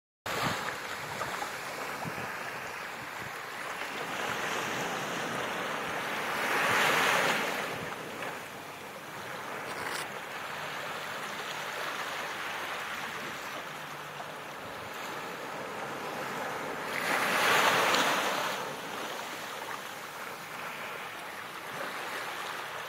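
Small waves washing up a sandy beach at the water's edge: a steady surf hiss that swells twice into a louder wash, each rising and fading over a couple of seconds.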